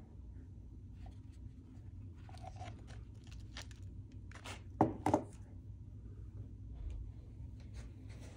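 Handling noise from a mountain-bike pedal with a fabric foot strap being lifted off a kitchen scale: rustling and scraping, then two sharp knocks close together about five seconds in.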